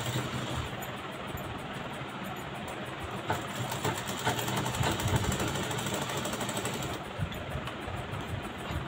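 Sewing machine running steadily, stitching through layered cotton blouse fabric with a fast, even rattle of the needle; it quietens a little about seven seconds in.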